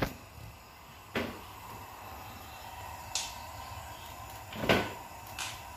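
About five short, sharp knocks and clatters from handling cookware at a gas stove, spaced a second or so apart, the loudest a little before the end, over a low steady background.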